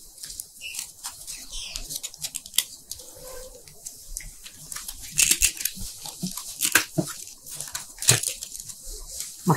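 Thin plastic seed-starter cups being folded and pressed into a card holder: crinkling with a run of sharp clicks and snaps, the loudest a few about five, seven and eight seconds in.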